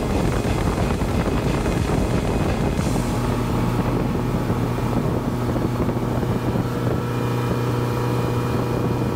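Motorboat running at speed, with wind and water spray rushing past the camera. About three seconds in, the steady hum of the Yamaha four-stroke outboard comes in clearly and holds.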